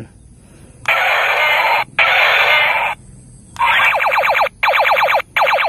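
Battery-powered plastic toy laser gun firing its electronic sound effects through a tiny speaker. First come two harsh, hissing bursts of about a second each, then three short bursts of rapid falling 'pew' laser tones.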